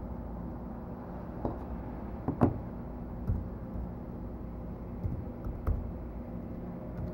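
A few irregular computer keyboard keystrokes and clicks, the loudest about two and a half seconds in, over a steady low hum.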